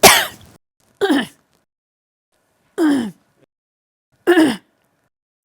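A woman coughing: four separate coughs, the loudest right at the start, then three shorter ones spaced a second or two apart, each dropping in pitch.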